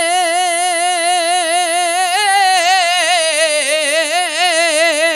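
A male kavishri singer holding one long sung note with a fast, even vibrato, with no instruments behind him.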